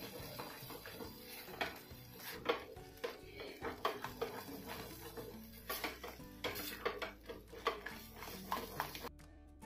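Spatula scraping and tapping irregularly against a kadai while stirring a thick, pasty chana dal halwa. Background music comes in near the end.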